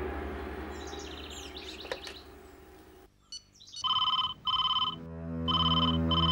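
A fading low sound with a few bird chirps, then about three seconds in a push-button desk telephone starts ringing with an electronic double ring: two short rings, a pause, two more. Soft background music comes in under the ringing.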